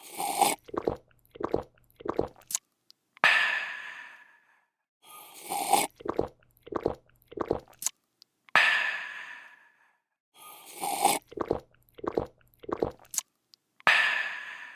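A person slurping a drink and swallowing it in several quick gulps, then letting out a long breathy "aah" of refreshment. The slurp, gulps and sigh cycle repeats about every five seconds, about three times.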